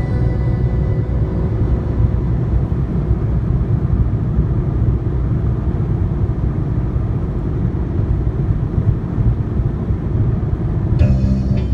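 Steady low road rumble of a car driving on the highway, heard from inside the cabin.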